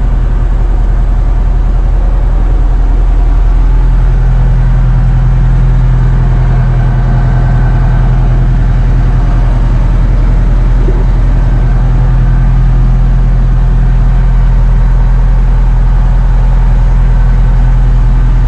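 1986-model heavy truck's diesel engine idling steadily, heard from inside the cab and sleeper.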